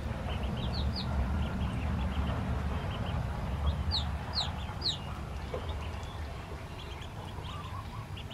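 Newly hatched ducklings peeping: short, high, scattered peeps, with three clear downward-sliding peeps in quick succession about four seconds in, over a steady low rumble.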